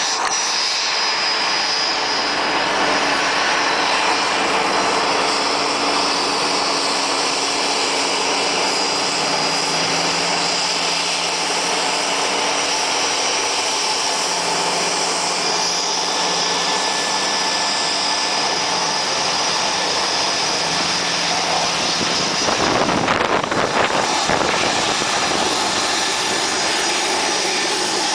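Running turbofan engines of a regional jet with rear-mounted engines: a steady jet whine and rush with several high steady tones. Near the end comes a louder, rougher gust of noise as the jet wash reaches the vehicle.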